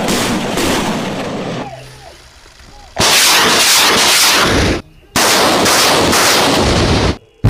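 Truck-mounted multiple rocket launcher firing: loud rushing blasts of rockets leaving the launcher. One dies away over the first two seconds, then two more start about three and five seconds in, each lasting about two seconds and stopping abruptly.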